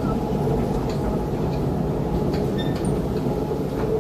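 Steady low mechanical rumble of a long metro station escalator running, with a faint hum and a few light clicks.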